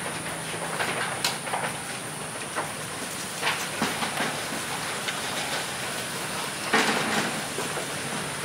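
Goat-shed ambience: a steady high hiss with scattered light knocks and clicks, and a brief louder rustle near the end.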